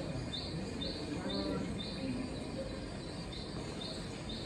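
Short high chirps repeating about twice a second, with a brief pause about two seconds in, over a low murmur of distant voices and room noise.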